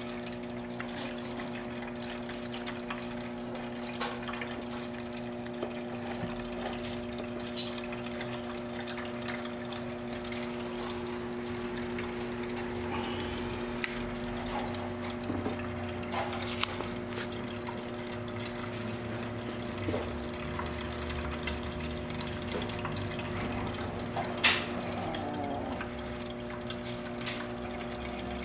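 A steady machine hum with a constant hiss throughout, broken by a few short clicks, the loudest about 24 seconds in.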